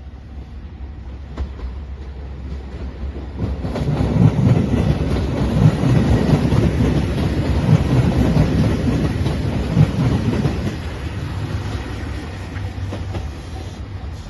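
A train passing close by. Its rumble builds about three seconds in, stays loud for about seven seconds with pulsing low thumps, then fades away.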